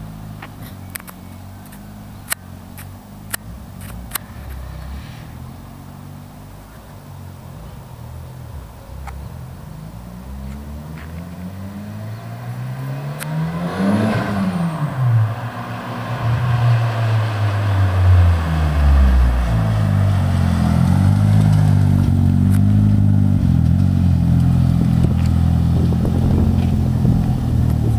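Mitsubishi Eclipse GSX's turbocharged 4G63 inline-four through a straight 3-inch stainless turboback exhaust with no catalytic converter: the car comes closer, its engine note rising then falling about halfway through, then it idles loud and steady close by for the last third. A few sharp clicks in the first seconds.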